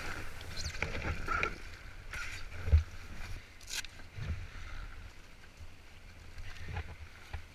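Paddle strokes and water splashes around an inflatable packraft as it is brought to a stop, with scattered knocks and one loud thump about three seconds in.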